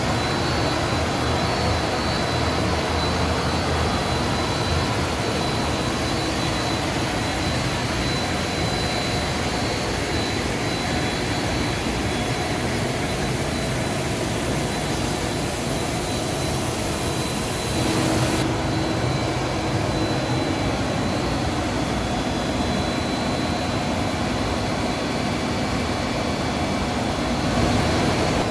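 Blown film co-extrusion line running: a steady rushing noise of the cooling-air blower and drive motors, with a thin high whine.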